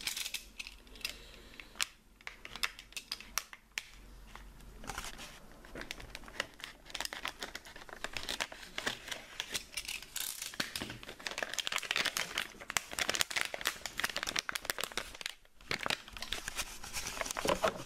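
Foil anti-static bag around a hard drive crinkling and tearing as it is cut open and pulled apart by hand, unevenly, with a brief pause near the end.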